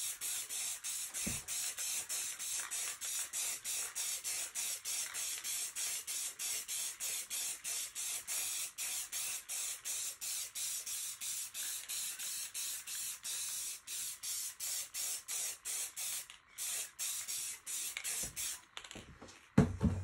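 Spray of semi-gloss clear finish being sprayed over a finished acrylic painting, a hiss that pulses evenly about four times a second. The spraying stops near the end, followed by a couple of knocks.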